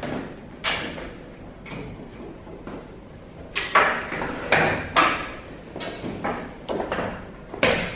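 Footsteps on a wooden parquet floor, then a run of knocks and scrapes from a school chair and desk as someone sits down and sets a bag down. The loudest knocks come in a cluster about halfway through, with another sharp one near the end.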